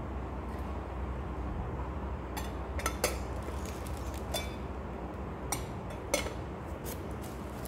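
Glass teapot being handled, giving a series of light clinks and taps of glass, some with a short ring, from about two seconds in, over a steady low hum.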